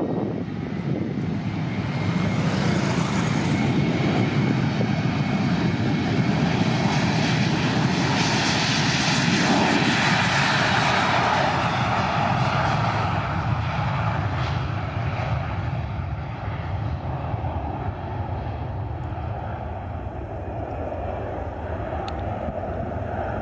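Airbus A321 jet airliner on its takeoff roll and climb-out: a steady jet engine roar that swells as it passes, loudest about ten seconds in, then slowly eases off. A faint rising whine sits under the roar at the start.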